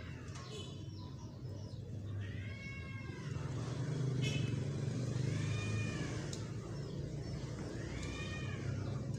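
A cat meowing: three drawn-out meows about three seconds apart, each rising and then falling in pitch, over a steady low hum.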